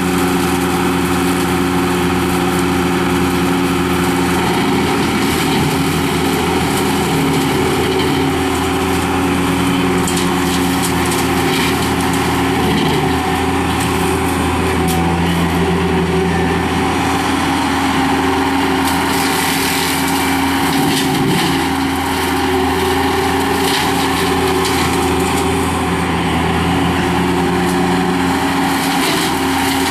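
Skid steer loader running at working throttle, driving a hydraulic brush cutter, with a steady low hum, many short sharp ticks and crackles, and an engine note that wavers and dips a few times as the cutter takes load.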